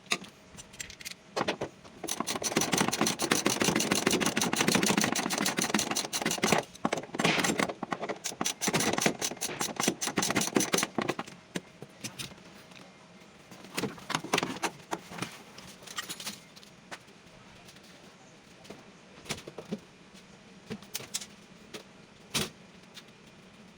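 Fast, dense metallic clicking of a ratchet wrench for several seconds, then scattered clicks and clinks of hand tools, while working at the cylinder head bolts of a Mitsubishi 4D56 diesel engine.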